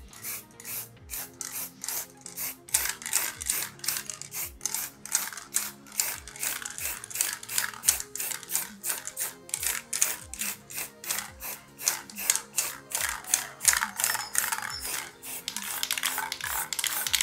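Background music with a fast, even beat and shifting low notes.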